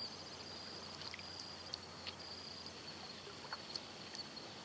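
Insects trilling, a high-pitched song that runs in stretches of about a second with short breaks, over a quiet background. A few faint sharp ticks are scattered through it.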